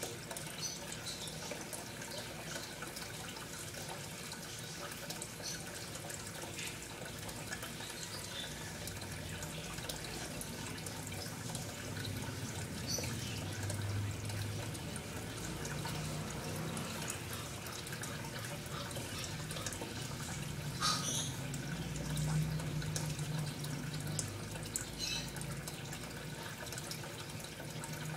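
Steady running water, with a low hum underneath and scattered small drips and splashes.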